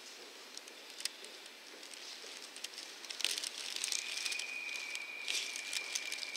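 Footsteps and handling rustle from someone walking with a handheld camera along a tiled station passage, growing busier about halfway through. A steady high electronic tone comes in about two-thirds of the way in and holds.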